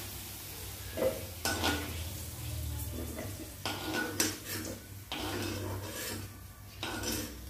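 Fried baby potatoes being scooped out of hot mustard oil in an iron kadai with a metal spatula and tipped onto a steel plate: metal clinking and scraping against the pan and plate, about six clinks, over the faint sizzle of the oil.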